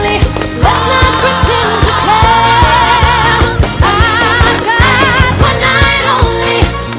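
Pop song with a sung vocal line held and wavering in pitch over a steady driving beat.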